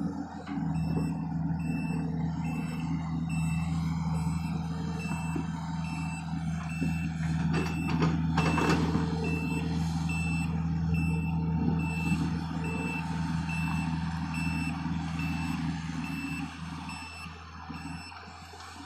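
A heavy-equipment backup alarm beeping steadily at even spacing over the steady running of the John Deere excavator's diesel engine, with a few knocks around the middle.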